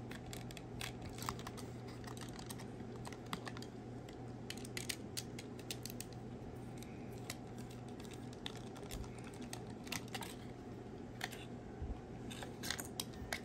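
Faint, irregular clicks and ticks of a small precision screwdriver backing a tiny screw out of a paper display base to free a 1/64 scale diecast model car, with the card and model handled in the fingers, over a steady low hum.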